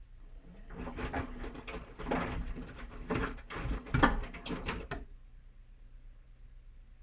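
Whirlpool washing machine in its main wash: the drum turns for about four seconds, churning wet laundry and water, then stops into a pause, leaving a low steady hum.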